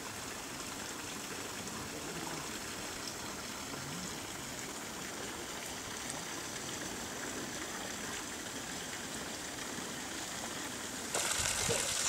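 Steady rush of running water, a soft even hiss. It becomes louder and brighter about eleven seconds in.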